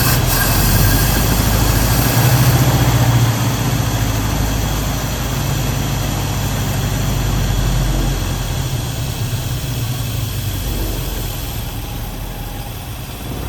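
1965 Ford Mustang engine running at idle after its carburetor was cleaned of seven-year-old gas, while the idle is being set so it stops trying to die. The engine speeds up briefly about two seconds in, then settles and slows toward the end.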